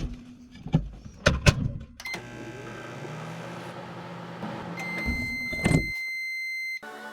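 A few sharp knocks, then a steady hum, over which a long high electronic tone sounds for about two seconds near the end, with one more knock partway through it.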